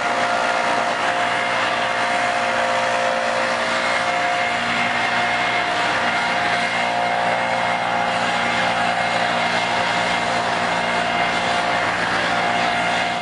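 Backpack leaf blower running steadily, its engine note and rushing air holding a constant pitch and level.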